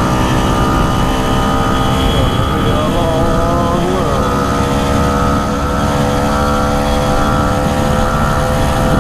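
The small 49cc engine of a Motoped motorized bicycle runs at a steady cruising speed as the bike rides along a road. Its drone holds an even pitch, over a low rumble.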